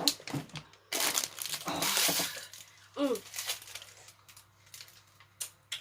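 A woman's short, falling cry of pain from the chilli burn about three seconds in, after clicks and a second or so of crinkly rustling.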